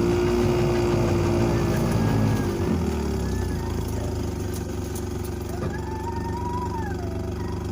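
A motor engine running, its pitch dropping about two and a half seconds in and then holding steady at a lower speed.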